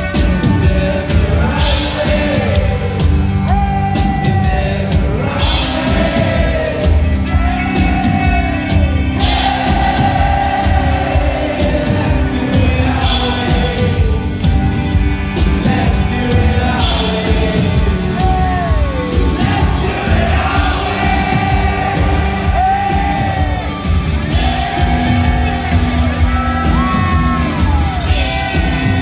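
Rock band playing live: acoustic and electric guitars with a lead singer, loud and continuous, the sung lines sliding between notes.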